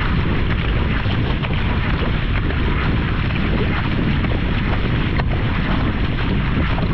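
Wind on the microphone and water rushing past a sprint kayak's hull, with the splash of a wing paddle's blades catching the water on each stroke, as a steady, loud wash.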